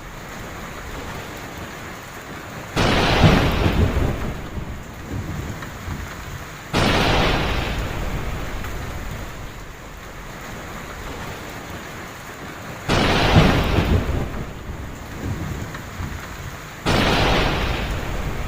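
Heavy rain falling steadily, broken by four sudden thunderclaps, each rumbling away over two or three seconds. The claps come in two pairs about four seconds apart.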